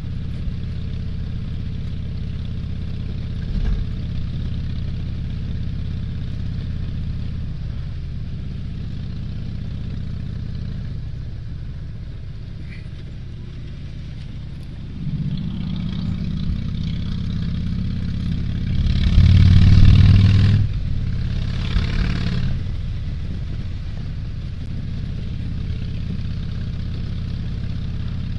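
Vehicle engine running steadily at low speed with a low hum. About two-thirds of the way through, a louder engine revs in two bursts: the first is the loudest sound, the second is shorter.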